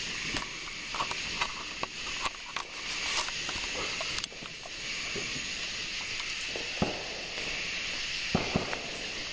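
Steady high hiss of night insects, with scattered clicks, knocks and rustles from the handheld camera being moved about; two sharper knocks come about seven and eight and a half seconds in.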